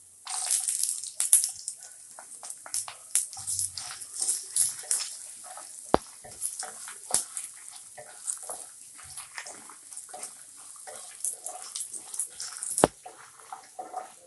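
Tamarind and ginger sizzling and crackling in hot sesame oil in a pan, a steady hiss of dense crisp pops, with two sharp knocks, one about halfway through and one near the end.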